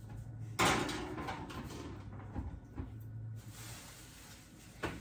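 A metal baking sheet of cookie dough slid onto an oven rack, a sharp metallic clatter about half a second in that fades over about a second, then a short knock near the end as the oven is shut. A low steady hum lies underneath.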